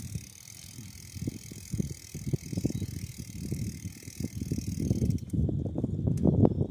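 Bicycle rattling and knocking as it rolls over a paved trail's cracks, picked up by a handlebar-mounted camera. The clatter is irregular and grows louder and busier over the last second and a half.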